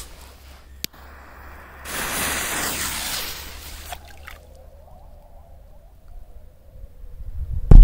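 A firecracker going off under the water of a river near the end: a sudden loud, deep thump followed by splashing. Before it come a sharp click about a second in and a couple of seconds of rushing noise.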